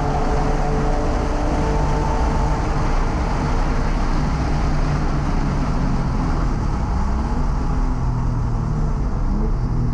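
Porsche 997's flat-six engine at full throttle, heard inside the cabin under heavy wind and road noise at well over 100 mph. Near the end the car brakes hard and the engine note rises in short jumps as it downshifts.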